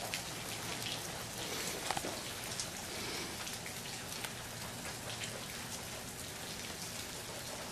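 Steady rainfall, an even hiss with scattered small ticks of drops landing.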